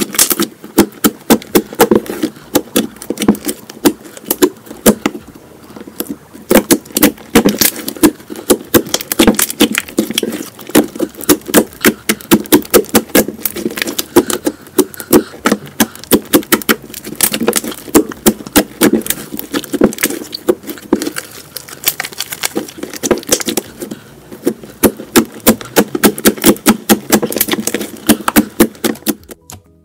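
A large batch of mixed slime being kneaded, folded and pressed by hands, giving rapid crisp popping and clicking as trapped air pockets are squeezed out. The pops come several a second, with a few brief lulls.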